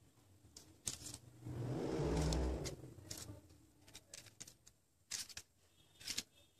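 Crepe-paper lily flowers being handled and set down on a table: a scatter of sharp paper crinkles and light taps, with a loud low thump and rumble lasting about a second around two seconds in.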